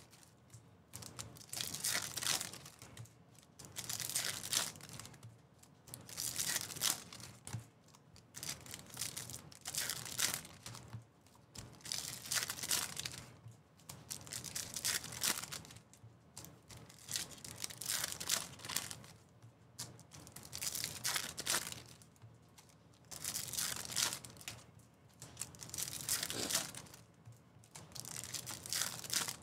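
Foil wrappers of Topps Pro Debut baseball card packs being torn open and crinkled by hand, in repeated bursts about every two seconds.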